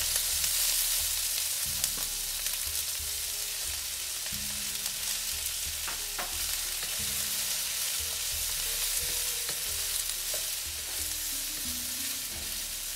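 Mixed vegetables sizzling in hot oil as they are stir-fried on full heat in a stainless steel wok, with the steady hiss of frying throughout. A wooden spatula stirs and now and then knocks sharply against the pan.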